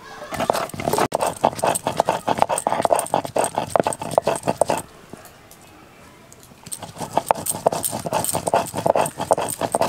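Stone roller (nora) grinding dried red chillies on a flat grooved grinding stone (shil): quick rhythmic knocking and scraping of stone on stone. It stops for about two seconds midway, then starts again.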